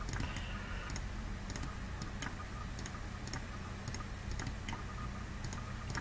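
Computer mouse clicking, a run of faint irregular clicks as edges are clicked on screen, over a steady low electrical hum.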